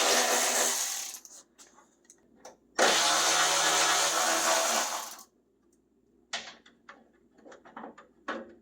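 A handheld power driver spinning a fastener loose in two runs of a few seconds each, with a steady motor whine. The first run is already going and stops about a second in; the second starts a little before three seconds in. Several light clicks and knocks follow near the end.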